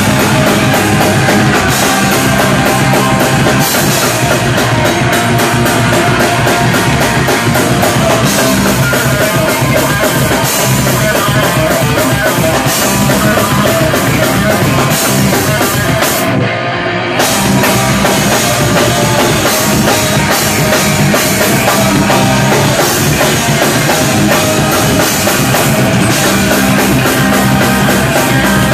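A live punk rock band playing loud: electric guitars and a drum kit pounding out a fast song, heard up close in a small club. About halfway through, the cymbals drop out for a moment before the full band comes back in.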